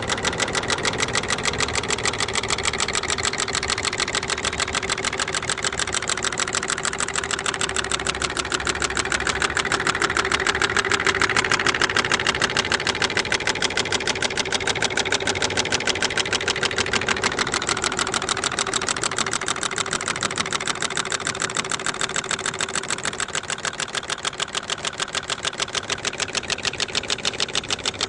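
Large Stirling engine running on concentrated sunlight from a Fresnel lens, its moving parts ticking in a rapid, even rhythm.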